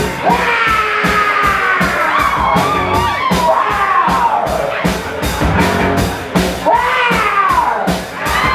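Live band music: a drum kit keeps a steady fast beat of about four hits a second under electric bass and bowed cello, with a sliding, wailing melody line on top.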